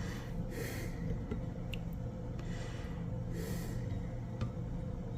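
Quiet room with a steady low hum, two soft breath-like hisses, and a few faint light clicks.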